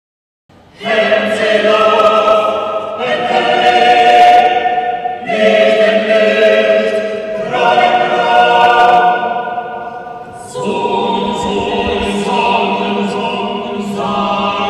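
A choir singing slow, sustained chords without accompaniment, each chord held for two or three seconds before moving to the next. It enters suddenly about half a second in.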